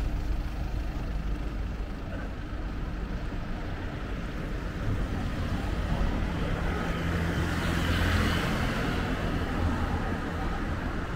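City street traffic: a steady low engine hum from vehicles on the road, with one vehicle driving close past. Its engine and tyre noise swells and fades about eight seconds in.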